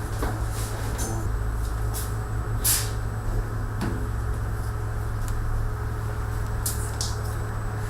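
Industrial automatic pattern sewing machine running: a steady low machine hum with short, irregular high hisses or clicks every second or so, the strongest about three seconds in.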